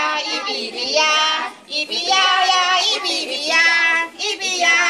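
A group of children singing a song together, with short breaks between phrases.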